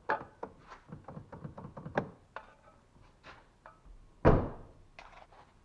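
Rear door of a 2004 Jeep Liberty being tested by hand: a run of small clicks and knocks from the door handle and lock, then one heavy thunk a little over four seconds in.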